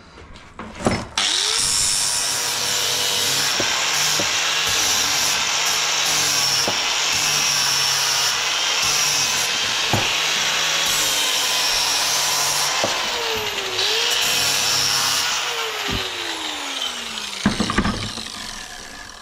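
Electric angle grinder grinding metal. It spins up about a second in and runs steadily with a brief dip in speed past the middle, then coasts down with falling pitch near the end, followed by a few knocks.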